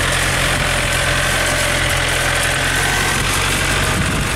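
Yanmar EF494T compact tractor's diesel engine running steadily, with a thin steady whine above the engine note.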